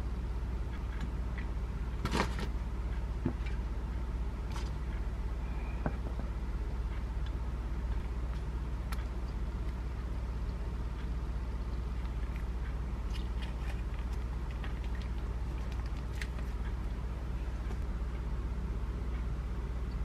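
Steady low background hum with scattered light clicks and taps of metal tongs and food set down on a ceramic plate; the sharpest tap comes about two seconds in.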